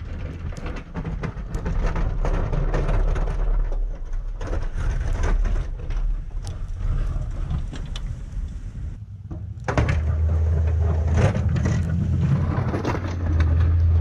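Toyota Tundra pickup engine running as the truck drives through deep snow, with a steady low hum. It drops out briefly about nine seconds in, then comes back louder and closer.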